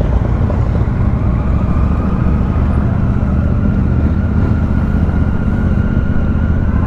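Motorcycle engines in slow, crowded street traffic: a steady low drone, with a faint steady higher tone above it.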